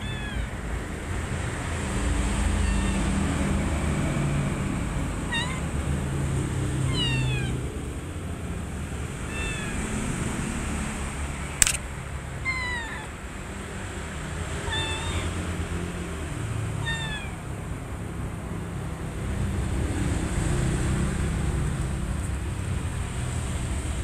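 Kittens mewing: about eight short, high-pitched mews, each falling in pitch, every couple of seconds. They sit over a steady low rumble, with one sharp click about halfway through.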